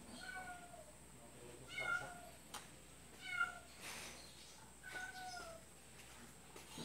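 Domestic cats meowing: four short meows, each falling a little in pitch, about a second and a half apart.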